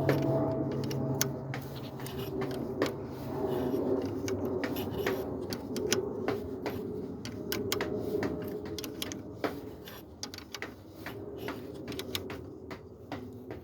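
Irregular metallic clicks and clinks of hand tools and metal parts being handled, over a low hum that fades out about four seconds in.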